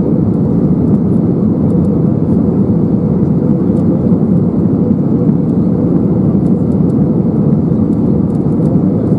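Steady in-flight cabin noise of an Airbus A320neo heard from a window seat: an even, low rush of airflow and engine noise.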